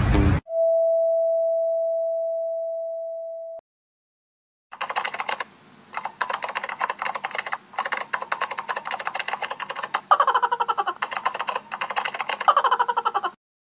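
A single steady beep that fades slowly over about three seconds. After a short silence comes a keyboard-typing sound effect: rapid key clicks in bursts for about nine seconds.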